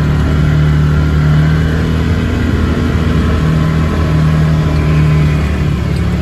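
Side-by-side utility vehicle (UTV) engine running at a steady drone while driving, heard from on board.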